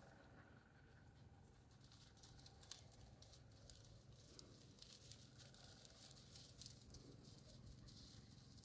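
Near silence with faint, irregular crackling rustles through most of it, like dry vegetation being brushed.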